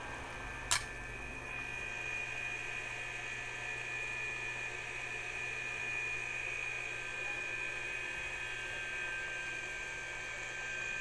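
A steady high-pitched electric whine over a low hum, like a small motor or fan, with one sharp click a little under a second in.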